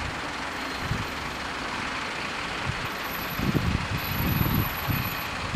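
Road vehicles idling while they wait at a level crossing, a heavy truck among them, under a steady hiss, with a run of irregular low thumps from about three to five seconds in.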